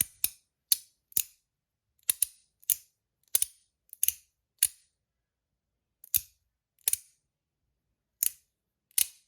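Titanium magnetic capsule slider fidget snapped back and forth between its magnetic click positions, giving loud, sharp metallic clicks. There are about a dozen at an uneven pace, some in quick pairs.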